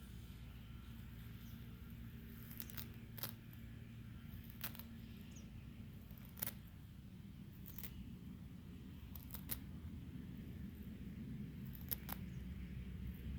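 An animal eating: sharp, crisp crunching clicks at irregular intervals, roughly one every second or two, over a low steady hum.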